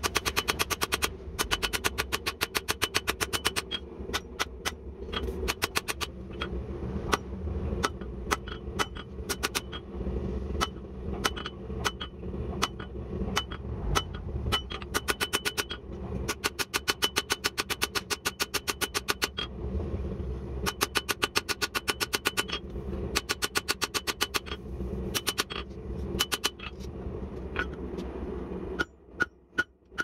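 Hand hammer forging a red-hot leaf spring steel knife blade on an anvil: fast runs of ringing blows, several a second, broken by short pauses. A steady low hum runs underneath and stops shortly before the end.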